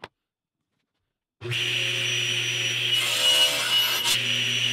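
Table saw switched on about a second and a half in, its motor running with a steady hum and whine. From about halfway the blade cuts through a small wooden block, adding a rasping saw noise, with a short sharp sound as the cut finishes.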